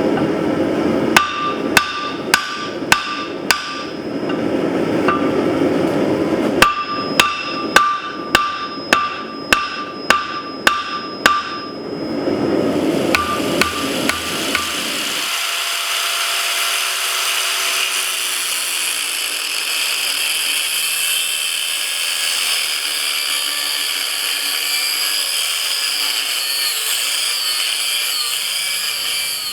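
Hand hammer striking steel on an anvil in two runs of blows, about two a second, each with a bright metallic ring, over a low steady rumble. About halfway through the hammering stops and a steady high-pitched hiss takes over.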